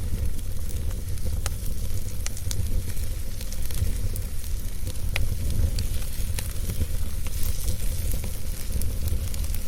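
Wood fire crackling in a fireplace: scattered sharp pops, about one a second, over a steady hiss and a low rumble.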